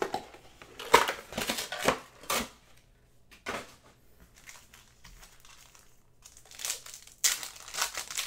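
Crinkling of foil trading-card packs being handled and pulled from a cardboard blaster box, then torn open, in short bursts: a cluster in the first couple of seconds, one about three and a half seconds in, and a busier run near the end.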